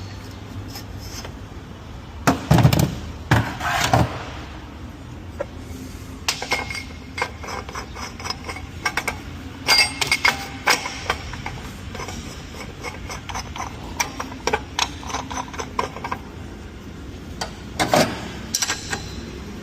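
Hand tools and metal parts clinking and knocking during clutch work on a DQ200 dual-clutch gearbox: irregular clicks and knocks, with a few louder thumps about two to four seconds in.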